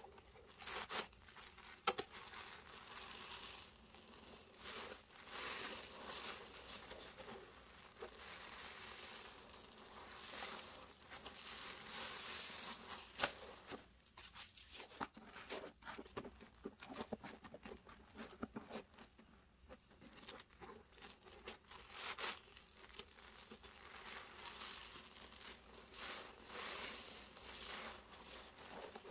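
A large sponge being squeezed, pressed and lifted in a basin of foamy Comet cleaning suds. Wet squelching and crackling foam come in repeated swells every second or two, with small sharp clicks here and there.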